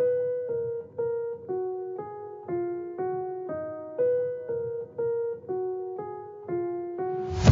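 Background music: a keyboard playing a slow melody of single notes, about two a second, each one dying away. At the very end, a louder track with a heavy beat cuts in.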